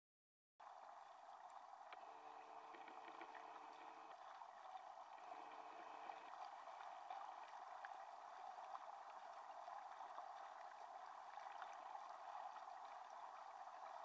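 Faint, steady rush of stream water heard underwater through a submerged camera, starting just after a brief silence.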